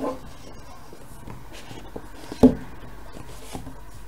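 Hands handling and rubbing a cardboard box while working its tight lid off, with a few light clicks and one sharp knock about two and a half seconds in, the loudest sound.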